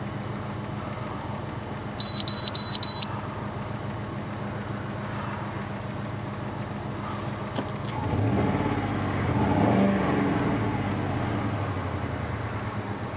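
Mercury Grand Marquis 4.6-litre V8 running at idle with a misfire. Four short high beeps come about two seconds in, and from about eight seconds in the engine sound swells louder for a few seconds, then eases back.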